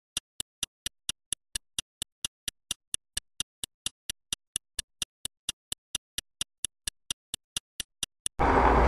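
A sharp, dry tick repeated evenly, about four a second, with dead silence between the ticks. Near the end a loud, dense noise cuts in abruptly.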